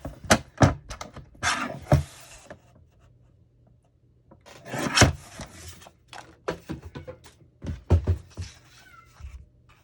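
Cardstock being handled and cut on the craft table: a run of sharp clicks and knocks, with two longer rasping slides, about one and a half seconds and five seconds in.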